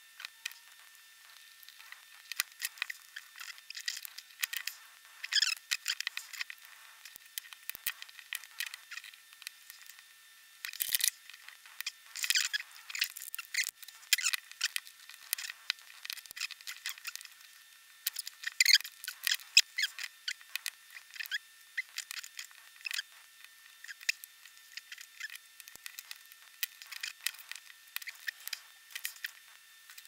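Irregular small plastic clicks, snaps and taps of a mobile phone being taken apart by hand: housing clips prying loose, a small screwdriver working, and parts set down on a silicone mat. The clicks come in bursts, the loudest clusters a little over a third of the way in and again about two-thirds through.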